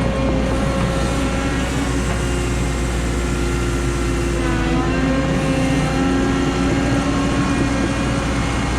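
Cat 314E excavator's diesel engine running under load while the hydraulics work, a steady drone with tones that shift in pitch about halfway through.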